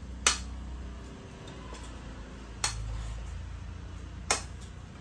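Spoon clinking against a stainless steel mixing bowl three times while a grated cassava and coconut mixture is stirred, over a low steady hum.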